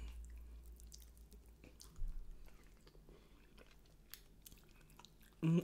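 A person chewing lamb close to the microphone: quiet, scattered wet mouth clicks and smacks, with a brief low rumble about two seconds in. A voice starts right at the end.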